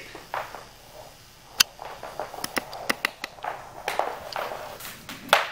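Footsteps on a wooden parquet floor and the handling of a trick rope, with scattered light clicks and one sharp click about one and a half seconds in.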